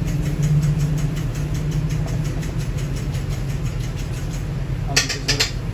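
Steady low machine hum, like a motor or engine running. There is a faint rapid ticking in the first couple of seconds, and a short loud burst of hissing noise about five seconds in.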